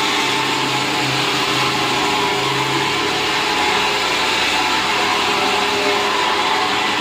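Electric fan running: a steady whir of motor and rushing air.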